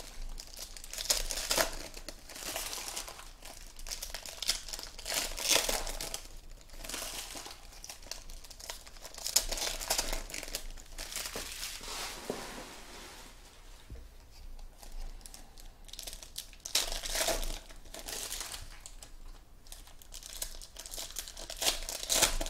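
Foil trading-card pack wrappers crinkling and tearing as packs are ripped open and the empty foil is crumpled, in irregular bursts with a quieter spell around the middle.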